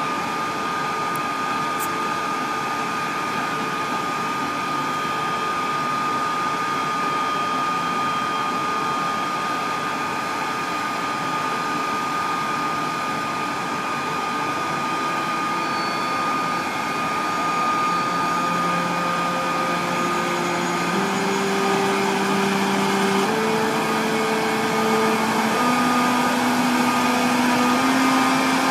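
ÖBB class 1116 Taurus electric locomotive pulling away with a loaded container train. Its traction converters give a steady high whine, then over the last ten seconds or so a run of tones climbing in distinct steps, the Taurus's musical start-up scale as it gathers speed.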